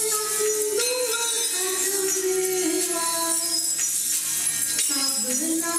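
Music for a contemporary dance piece: a slow melody of long held notes that slide between pitches, over a continuous high shimmer of small jingling percussion.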